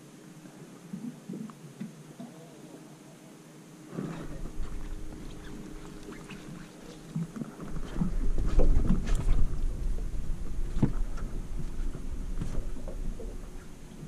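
Handling noise from a camera being moved around: an uneven low rumble that grows strong in the second half, with a few sharp knocks.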